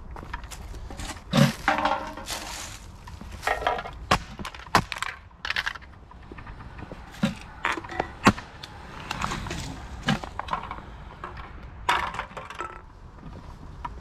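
Footsteps crunching through dry fallen leaves and brush, with sharp cracks of twigs snapping and scattered knocks.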